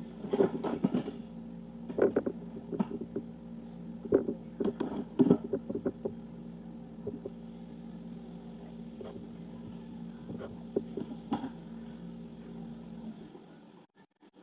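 Steady low mechanical hum with scattered clicks and taps of a fork working a baked potato against a plate; the hum cuts out near the end.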